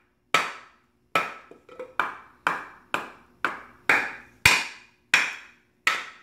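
Wooden baton striking the spine of a Mora knife to split a wood blank: about ten sharp knocks, roughly two a second, each ringing briefly. The loudest blow comes about halfway through.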